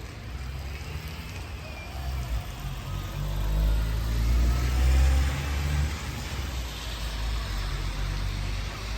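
A motor vehicle passing on a wet street: a low engine rumble and tyre hiss swell to a peak about four to five seconds in, then fade, over steady rain.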